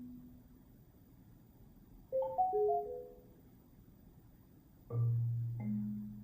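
Solo marimba played sparsely, struck notes ringing and dying away. About two seconds in a quick cluster of about five notes sounds; about five seconds in a deep low note rings out, with another note struck just after it.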